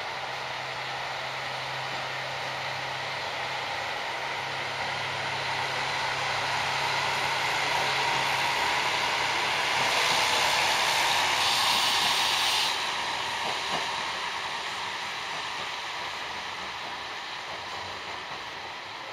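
Kyoto Tango Railway MF100-series diesel railcar pulling away from the platform and passing close by. Its engine hums steadily at first, then the sound swells as the car goes past, with a hiss that cuts off suddenly near the loudest point, and fades as it runs off into the distance.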